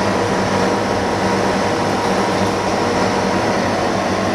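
The fan and filter unit on top of a dust-free room running steadily: an even rush of air with a low hum under it.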